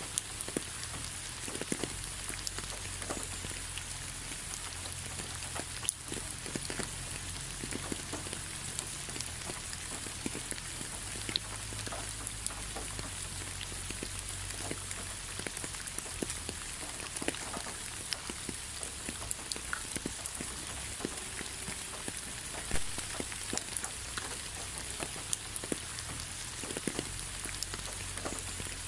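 Steady rain falling, with many single drops ticking close by through the hiss.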